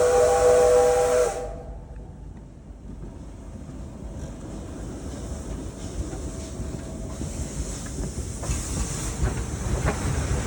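P36 steam locomotive's steam whistle sounding a chord over a loud steam hiss, both cutting off about a second in. Then the low rumble of the train starting away from the station, growing louder, with the hiss coming back near the end.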